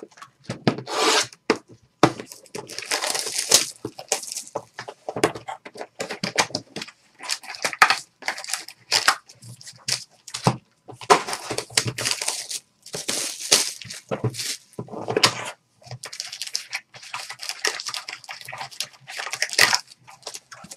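Trading card boxes and foil packs being torn open and handled: irregular bursts of tearing, crinkling and rustling of wrappers and cardboard.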